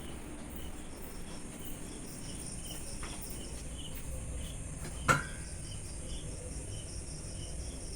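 Crickets chirping steadily, a faint pulse about twice a second over a high hiss, with one sharp click about five seconds in.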